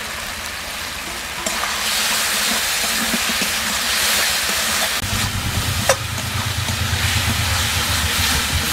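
Potato chunks frying in a mustard-oil masala in a metal kadai: a steady sizzle that gets louder about one and a half seconds in, with a metal spatula scraping and tapping against the pan as they are stirred. A low hum joins about five seconds in.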